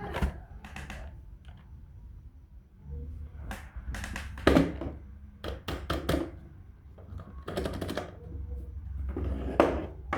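Plastic toy vehicles being handled: scattered clicks, clatters and knocks, the loudest about four and a half seconds in and again near the end, over a low handling rumble.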